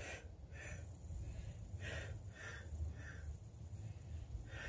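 A man breathing in and out in several short, soft breaths while holding and pulsing in a deep front-split hamstring stretch, over a faint low rumble.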